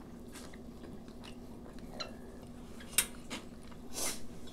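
Eating noises: chewing and slurping of ramen noodles and bites of a lavash wrap, with a sharp click about three seconds in and a short noisy burst near the end, over a steady low hum.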